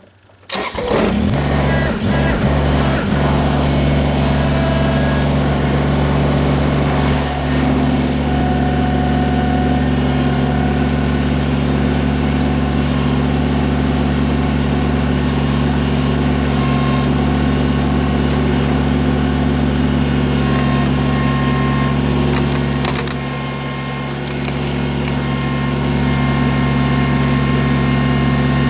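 Kubota BX23S compact tractor-loader-backhoe's three-cylinder diesel engine starting about half a second in, then running steadily at a high, even speed, with a short drop in level about two-thirds of the way through.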